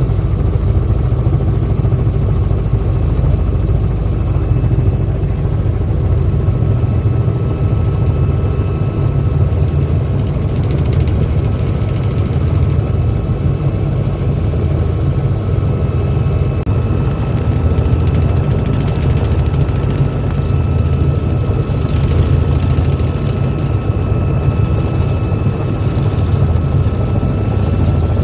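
Helicopter in flight heard from inside the cabin: a loud, steady rotor and engine drone with a constant high whine over it.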